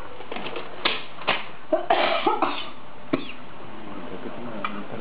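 A person coughing several times in short, sudden bursts, the middle ones run together with some throaty voiced sound.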